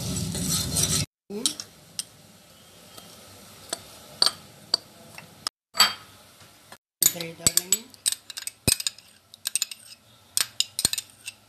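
A steel spoon stirring sugar syrup in a steel pot, then after a cut, a string of light clinks and taps as a steel spoon knocks against a glass and a glass bowl while spooning ingredients onto flour.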